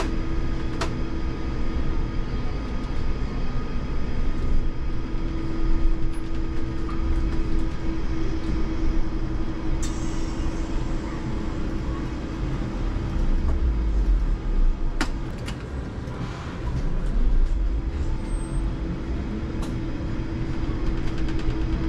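IMC Hess Lightram 19 DC trolleybus driving through town, heard from inside the cab: a steady electric hum over road rumble, with a few sharp clicks and knocks.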